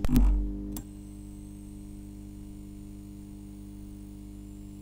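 Electrical hum sound effect in a VHS-style intro: a short crackle of static with a low thud, then a steady buzzing mains-like hum.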